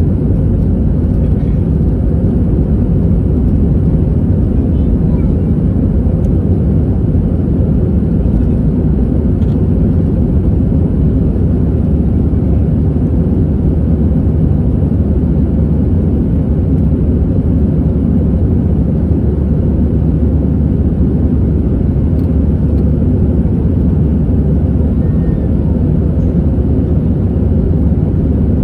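Airbus A320 engines and airflow heard inside the cabin during takeoff: a loud, steady low rumble that does not rise or fall.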